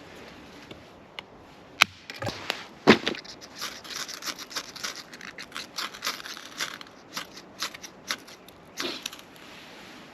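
Dry wood kindling snapping and crackling: a few sharp snaps, then an irregular run of quick crackles.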